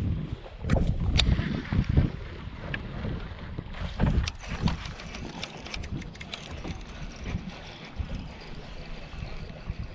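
Wind buffeting the microphone in uneven low gusts, loudest in the first two seconds and again about four seconds in, with a few sharp clicks.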